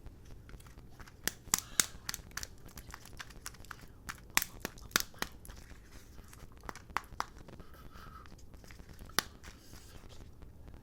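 Kinder egg wrapper being torn open and crinkled by hand: a run of sharp crackles, loudest about a second and a half in, again around four to five seconds, and once near nine seconds.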